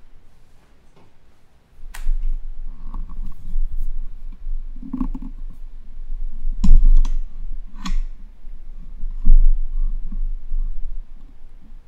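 Handling noise: a run of sharp clicks and knocks over a low rumble, starting about two seconds in, with the loudest knocks about two-thirds of the way through, as of objects being moved and set down on a table.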